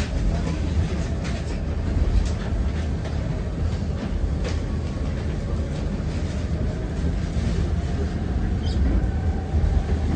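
Inside a KAMAZ-6282 electric bus on the move: a steady low road rumble with scattered clicks and rattles, and a faint steady whine in the second half.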